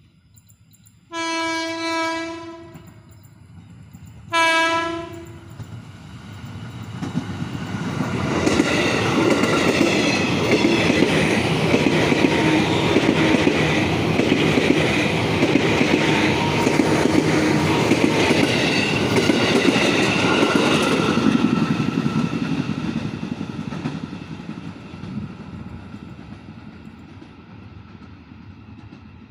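KRL commuter electric train sounding its horn, one long blast and then a short one, typical of the drivers' greetings to trackside railfans. The train then passes close by, its wheels clattering over the rail joints for about thirteen seconds before fading as it moves away.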